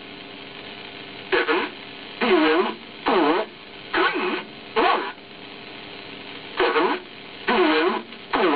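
Shortwave numbers station received on the 14 MHz band: a voice reads single numbers about one a second, five in a row, then a short pause before the next run, over steady radio hiss.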